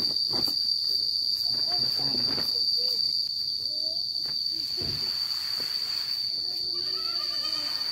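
Steady high-pitched insect chirring, one unbroken tone throughout, with faint scattered handling noises and a few brief voice-like glides underneath.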